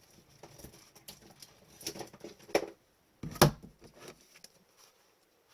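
Trading cards and packs being handled on a table: light rustles and clicks, with a sharper tap and then one louder knock about three and a half seconds in.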